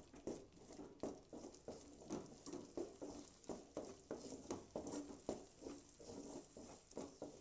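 A spatula stirring and scraping a thick mash of flattened rice (poha) in an aluminium pot, a quick uneven run of soft knocks and scrapes about three a second, as the powder is worked into the boiling masala water so that no lumps form.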